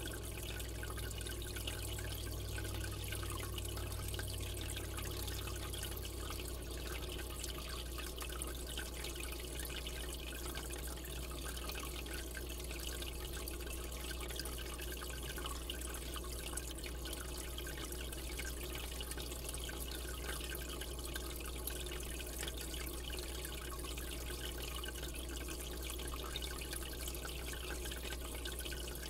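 Steady trickling and dripping of water circulating in a saltwater aquarium, over a low steady hum.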